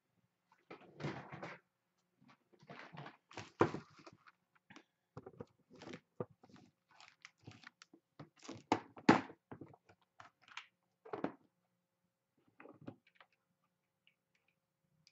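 Irregular clicks, knocks and rattles of small metal vape atomizer parts being handled and picked out of a clear plastic compartment organizer box on a wooden desk, with two sharper knocks about three and a half and nine seconds in.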